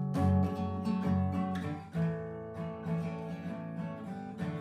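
Acoustic guitar strummed in a quick pattern for about two seconds, then a brief dip and quieter held chords ringing.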